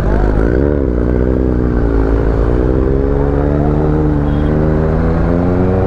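Motorcycle engine under way in traffic: its pitch rises and falls briefly, then climbs steadily as the bike accelerates.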